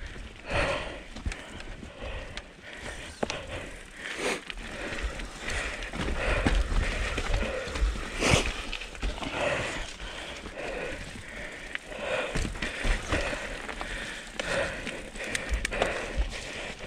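Mountain bike riding down a dirt singletrack trail: tyres rolling over dirt and roots, with scattered clicks and rattles from the bike and a low rumble of wind on the microphone. The rider's breathing comes through in a repeating pattern.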